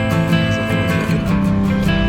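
Background music led by a strummed guitar.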